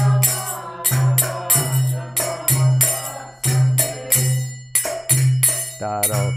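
Kirtan accompaniment between sung lines: metal hand cymbals and a drum keep a steady beat of about three strokes a second over a sustained low drone.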